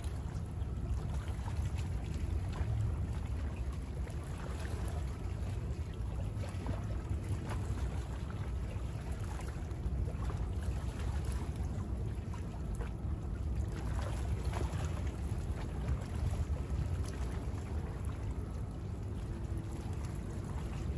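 Small bay waves lapping at the shoreline in soft, irregular splashes over a low steady rumble. A faint steady hum from a passing boat's motor comes in near the end.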